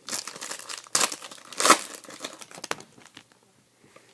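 Crinkling and tearing of a card pack wrapper being handled, a run of sharp crackles with the loudest just under two seconds in.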